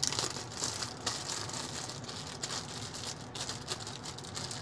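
Clear plastic packaging bag crinkling and rustling as it is handled and opened, an uneven run of small crackles.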